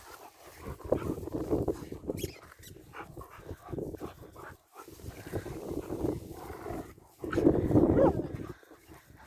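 Dogs vocalizing during rough play, in three bursts, the loudest about three-quarters of the way through.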